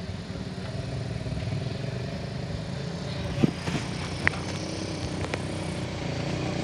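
Vehicle engines running steadily on a steep dirt hill road, with two short sharp knocks in the middle.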